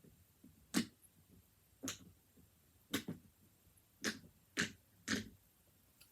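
Train-shaped silicone pop-it fidget toy, its bubbles pressed in one by one on a hard surface: six sharp pops, about one a second at first, the last three quicker.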